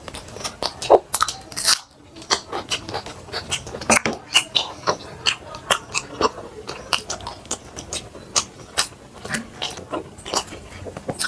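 A person chewing and eating food, with many short, sharp wet mouth clicks a few times a second.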